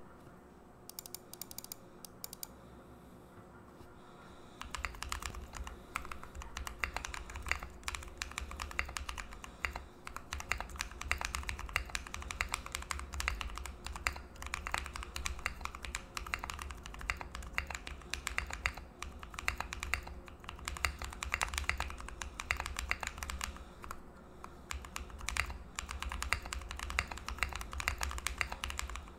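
Typing on a Fjell custom mechanical keyboard with lubed Trash Holy Panda tactile switches, an FR4 plate in an O-ring-mounted aluminium case, and Cherry Notion keycaps. A few scattered keystrokes come first, then fast, continuous typing starts about four and a half seconds in.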